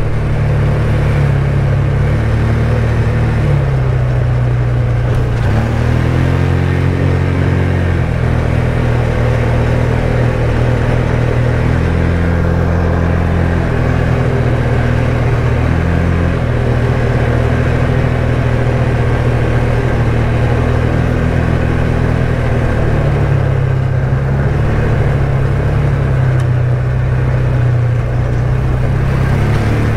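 ATV engine running steadily while riding along a trail. Its pitch steps up and down with the throttle: it rises around six seconds in, drops back about two seconds later, and changes again a little past twenty seconds.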